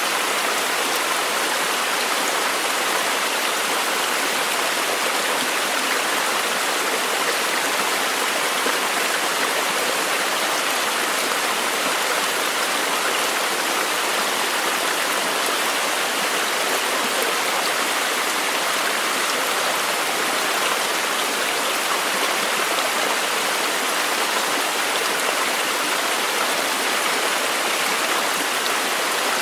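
Steady, unbroken rush of running water, with an even hiss and no distinct splashes or drops.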